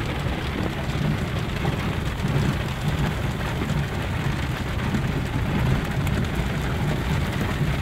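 Heavy rain falling on a Toyota 4x4's roof and windshield, heard from inside the cab, with the vehicle's engine running steadily underneath.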